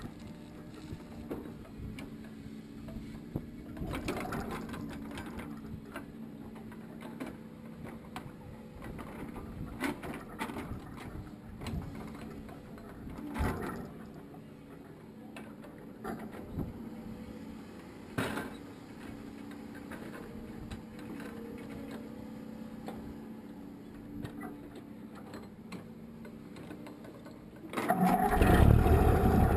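A machine running steadily with a low hum, broken by scattered knocks and clanks; near the end, loud music comes in.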